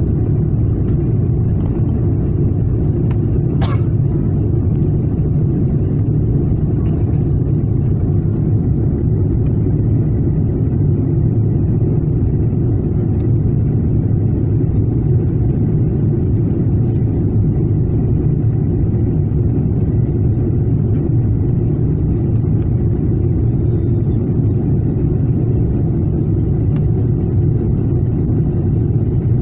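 Steady low drone of a Boeing 777-300ER's twin GE90 engines and airflow heard inside the economy cabin as the airliner climbs after take-off, with one brief click about four seconds in.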